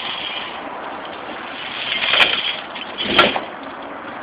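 Steel snow tire chains rattling and clanking twice, about two and three seconds in, as a chain is lifted and thrown over the top of a semi truck's drive tire, over a steady background noise.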